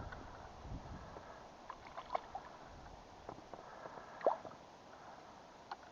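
Faint water sloshing with a few single drips, the clearest about two seconds in and just past four seconds in.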